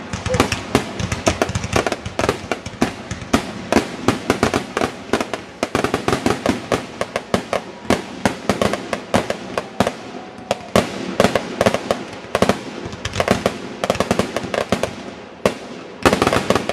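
Fireworks display: a rapid, unbroken barrage of aerial shell bursts, many sharp bangs a second.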